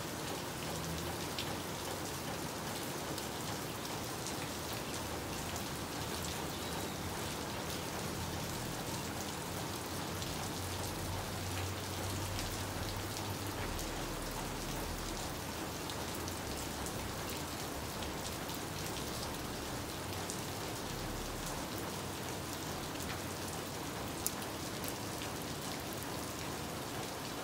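Steady rain falling on tiled roofs and a wet paved street, an even hiss that holds at a constant level.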